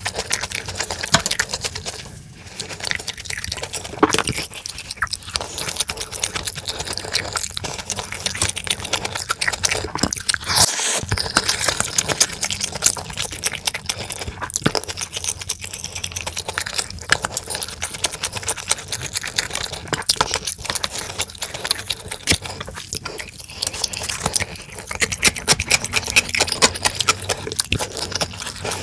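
Close-miked eating sounds: chewing and wet, sticky mouth sounds of jjajang noodles, fried pork and fried dumplings, with a wooden spoon and chopsticks clicking and scraping in plastic bowls. A dense run of small clicks and crackles throughout.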